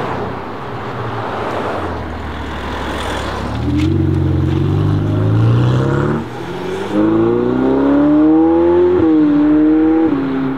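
Ferrari 488 Pista's twin-turbo V8 accelerating hard, its pitch climbing steeply and dropping sharply at each of two quick upshifts. For the first three seconds or so there is only a broad rush of noise before the engine note rises out of it.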